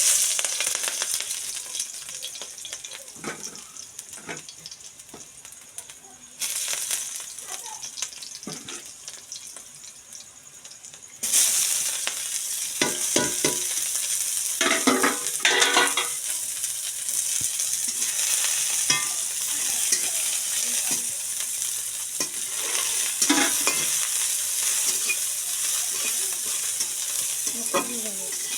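Ingredients sizzling in hot oil in a pan while being stirred, with scraping strokes. The sizzle starts suddenly, then jumps louder twice, at about six and about eleven seconds in, and stays loud after that.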